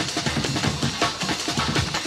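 Electronic dance music from a live DJ set: busy, fast drum hits over a heavy bass line, with no break.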